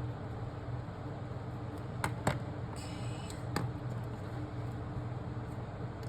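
Steady low background hum with a few faint sharp clicks about two and three and a half seconds in.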